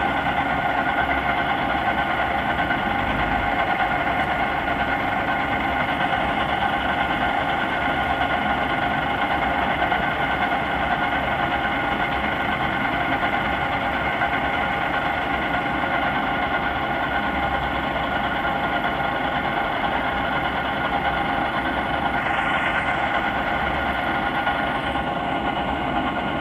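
An engine running steadily: a constant, unchanging hum made of several steady tones.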